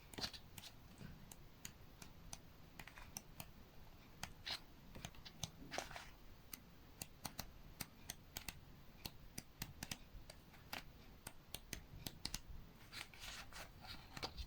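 Faint, irregular clicks and rustles of a card-and-paper photo flipbook being handled, opened and its pages turned.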